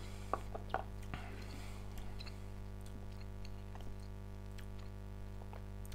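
Faint mouth sounds of a whisky being tasted: a few small wet clicks and smacks of the lips and tongue in the first second or so, then scattered faint ticks, over a steady low electrical hum.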